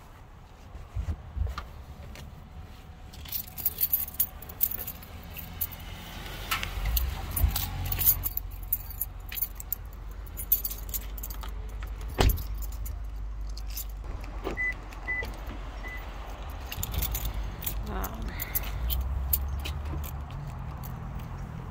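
Keys jangling and clattering amid handling noise, with one sharp knock about twelve seconds in and three short high beeps a few seconds after it.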